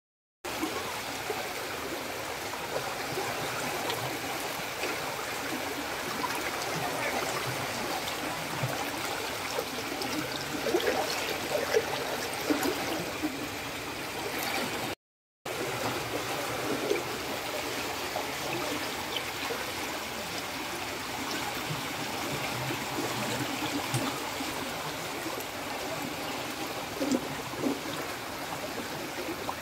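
Muddy floodwater from heavy rain rushing and gurgling in a steady flow along a flooded lane. The sound drops out briefly twice, once just after the start and once about halfway through.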